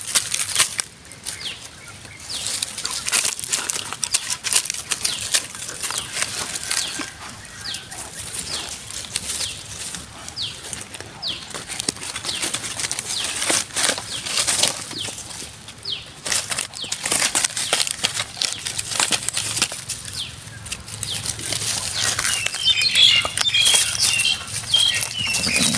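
Dry leaves and twigs rustling and crackling in irregular bursts as a young macaque forages through leaf litter on the ground. Near the end, a quick run of short high chirps comes in.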